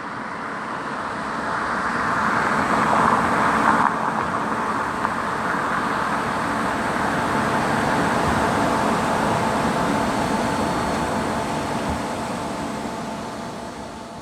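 Road traffic: motor vehicles passing by, the noise swelling and fading as they go, loudest about three seconds in and again around eight seconds.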